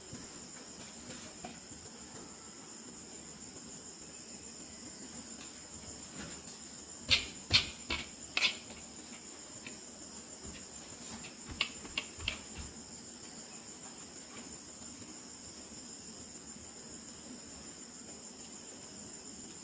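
Sharp clicks and taps from hands handling plastic fashion dolls, in two short clusters about seven and twelve seconds in, over a steady high-pitched background hum.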